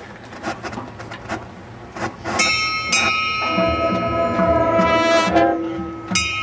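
Scattered clapping from the crowd, then about two and a half seconds in a high school marching band starts playing: a loud held brass chord, joined by a steady pulsing beat underneath.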